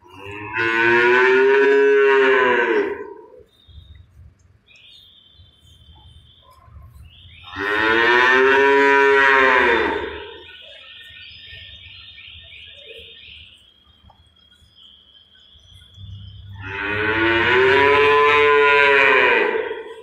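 Black-and-white dairy calves mooing: three long, loud moos about three seconds each, one at the start, one in the middle and one near the end, each rising and then falling in pitch.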